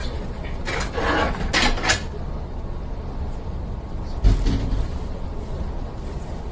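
Standing Hankyu electric train: a steady low rumble, a few short hisses of compressed air in the first two seconds, then a heavy thud about four seconds in, typical of the air-operated doors closing.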